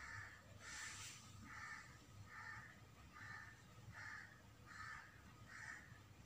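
A bird calling over and over in short, faint calls, a little more than one call a second, with a brief hiss about a second in.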